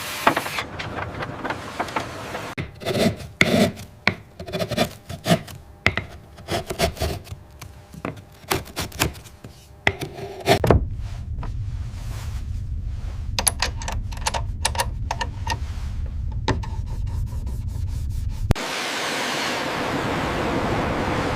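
Rubbing and scraping with many irregular knocks. About eleven seconds in, a steady low rumble takes over with scattered clicks on top, giving way to an even hiss near the end.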